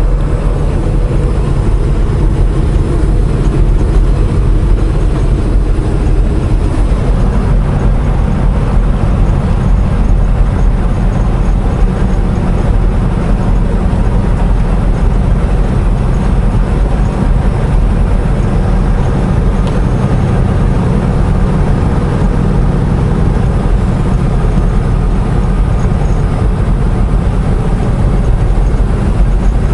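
Semi-truck cruising at highway speed, heard from inside the cab: a steady low drone of diesel engine and road noise.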